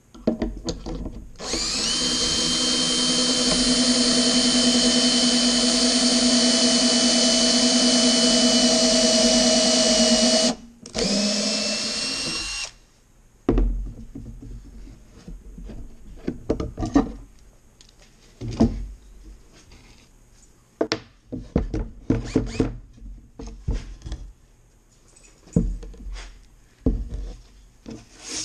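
Power drill boring pocket holes through a Kreg pocket-hole jig into a wooden board: a brief burst, then a steady run of about nine seconds, then a second shorter run that winds down. After that come scattered knocks and clatter of wood being handled.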